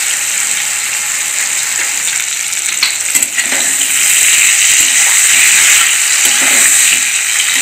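Eggplant pieces sizzling in hot oil in a steel kadai, with a metal spatula scraping and clicking against the pan as the pieces are turned, most sharply about three seconds in. The sizzle grows louder from about four seconds in.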